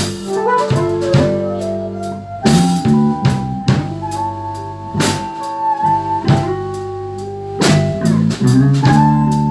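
Live blues band playing an instrumental passage between sung lines: guitar holding and bending long melody notes over bass and a drum kit keeping time with regular hits.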